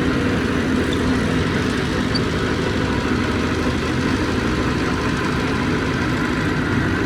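Heavy diesel engine of earthmoving equipment running steadily, with no change in pace.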